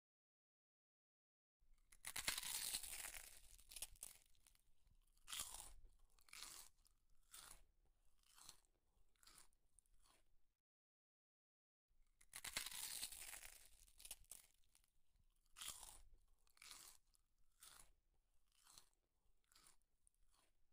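Close-up eating sounds: a long crunchy bite, then a run of short chewing crunches about two a second that grow fainter. After a moment of dead silence the same bite-and-chew sequence comes again.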